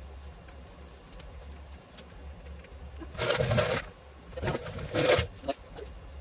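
Two short bursts of scraping and clatter, about three and five seconds in, as parts at a small ATV's front wheel are handled, over a low steady hum.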